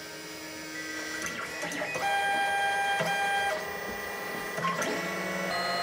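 Lulzbot TAZ4 3D printer's stepper motors whining as the print head travels into place to start a print. It is a set of steady tones that jump to new pitches with each move, louder from about two seconds in.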